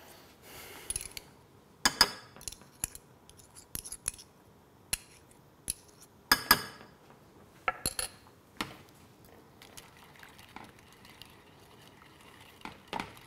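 Metal spoons clinking against each other and against a glass saucepan as miso paste is scraped off into the sauce: a scatter of sharp, briefly ringing clinks, the loudest about two seconds and six and a half seconds in, thinning out to faint ticks of stirring in the second half.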